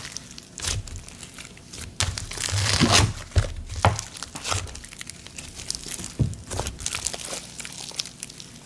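Thick snow butter slime being squished and pressed by hand, giving off irregular crackly, sizzly pops, busiest and loudest about two to four seconds in.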